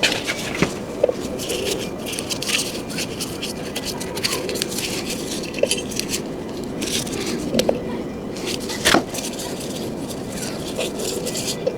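Hand tools and scooter parts being handled: irregular short clicks, knocks and scrapes over a steady low background noise.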